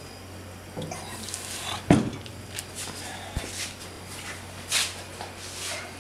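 A string of knocks and rubbing handling noises from the wooden sub box being worked while its resin coat is spread, the loudest a sharp knock about two seconds in. A steady low hum runs underneath.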